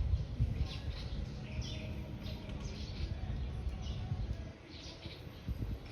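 Small birds chirping: short high chirps repeated irregularly, over a steady low rumble.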